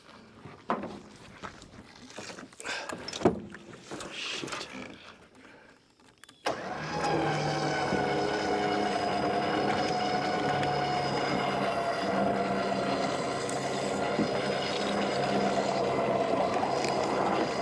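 A few scattered knocks and clatter, then about six and a half seconds in an engine comes in abruptly and runs steadily.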